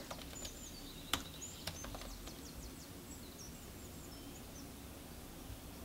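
Quiet room tone with two faint sharp clicks a little over a second in, about half a second apart, from the laptop being used, and a few faint high chirps.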